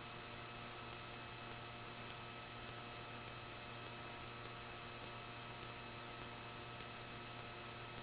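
Faint steady electrical hum and hiss on the aircraft's intercom audio feed, with a short sharp tick repeating about every 1.2 seconds.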